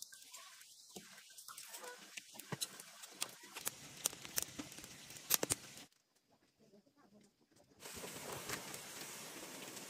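Wood fire crackling and popping under a large wok of pork fat, in irregular sharp snaps. After a brief drop-out about six seconds in, there is a steadier hiss with small clicks as the pork pieces are stirred with a wooden paddle.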